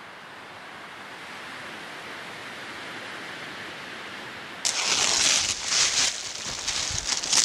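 A steady hiss that slowly grows louder, then, about two thirds of the way through, a large tarp being spread and pulled over snow, crinkling and rustling loudly in quick rustles.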